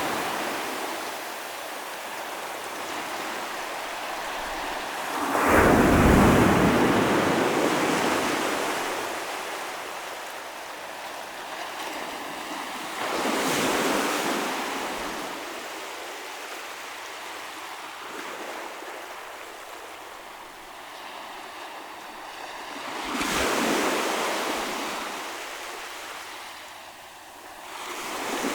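Ocean waves breaking on the shore: three crashes about eight to ten seconds apart, the first, about five seconds in, the loudest, with the hiss of water washing up and drawing back between them.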